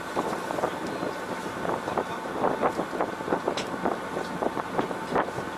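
Wind on the microphone over a fishing boat's engine running, with frequent short irregular knocks and clicks.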